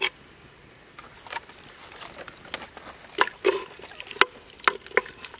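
Wooden spoon stirring soup in an earthenware clay pot, knocking against the pot's inside at irregular moments with short, ringing clacks. The loudest knocks come in the second half.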